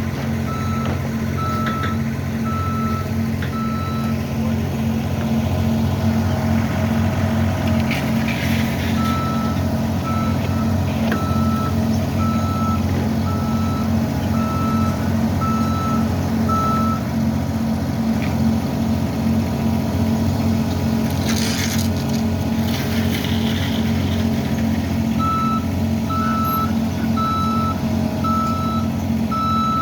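Diesel engine of heavy construction machinery running steadily, with its backup alarm beeping a little over once a second in three stretches as it reverses. Two brief hissing noises come about 8 seconds in and near 22 seconds.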